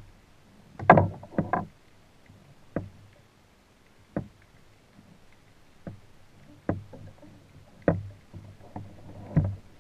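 Irregular knocks and clunks against a plastic kayak as a caught cabezon is unhooked and handled with a fish grip, the loudest cluster about a second in.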